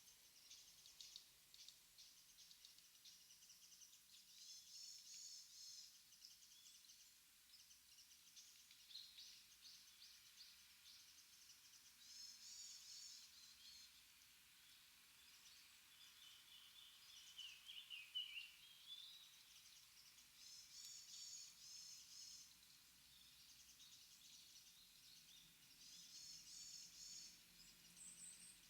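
Small wild birds calling faintly in woodland: short bouts of quick, high chirps every few seconds, including one run that drops in pitch, over a faint steady background hiss.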